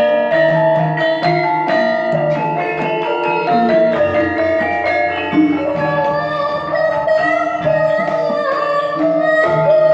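Javanese gamelan ensemble playing, with struck bronze metallophone and gong notes over a kendang drum. A girl's voice sings a wavering melody into a microphone from about halfway through.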